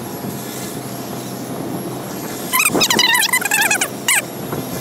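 Steady hum of an FW450 H1 electric RC helicopter's motor and rotor just after it has been brought down. About two and a half seconds in, a louder burst of high, warbling chirps runs for about a second and a half, with one more short chirp near the end.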